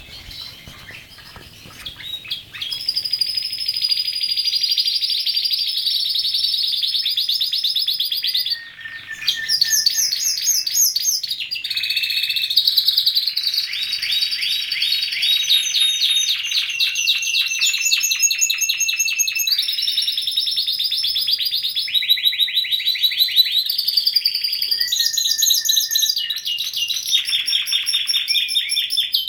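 Domestic canary song: long runs of rapid, fast-repeating trills that switch to a new phrase every second or two, starting softly and going on almost without a break, with one short pause about eight seconds in.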